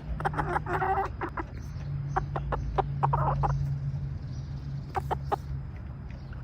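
Buff Orpington rooster giving frustrated, scolding clucks and grumbles in a few short bursts over the first three seconds or so, his complaint at being offered an empty hand. A few sharp clicks come later, over a steady low hum.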